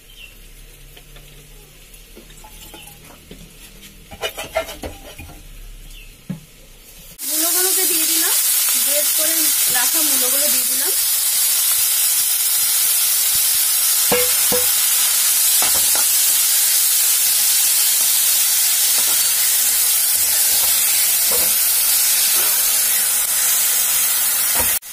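Grated radish frying in hot oil in a wok: a loud, steady sizzle that starts suddenly about seven seconds in. A metal spatula scrapes and taps against the pan as the radish is stirred. Before the sizzle there are only quiet handling sounds with a few clicks.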